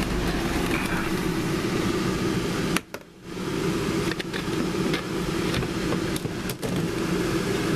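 Arksen 11-lb compact washer's spin-dry motor running with a steady hum. It drops out briefly about three seconds in, then picks back up, with a few light clicks.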